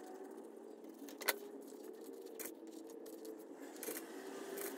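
Hand-handling noise from a leather-wrapped steering wheel being turned and worked: a few sharp clicks and taps, the loudest about a second in, over a faint steady background hum.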